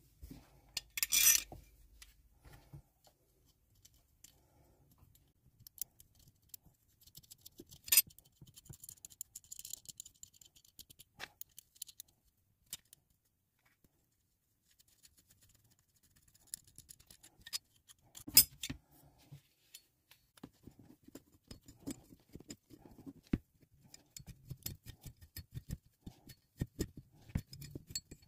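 Small metal parts of a car's A/C idler pulley assembly being handled by gloved hands on a cutting mat: scattered clicks, clinks and light scraping as a long bolt, spacer and pulley are fitted to the tensioner bracket. There are a few louder knocks, about a second in, around eight seconds and around eighteen seconds.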